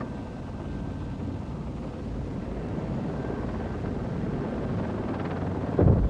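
Helicopter noise: a steady low rumble that builds slightly, with a sudden louder burst near the end.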